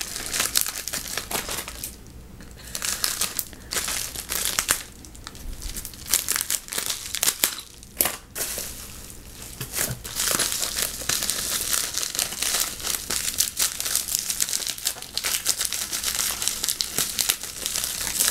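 A small plastic mailer packet crinkling and rustling as it is handled and pulled open by hand, in irregular bursts at first and more continuously in the second half.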